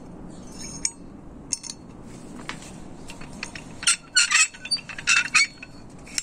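Light metallic clinks and clicks from a hand winch and its steel cable being handled. They are scattered and faint at first, then come as a quick run of louder clinks with a brief ring in the second half.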